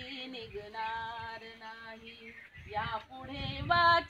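A woman singing a slow melody in long held notes.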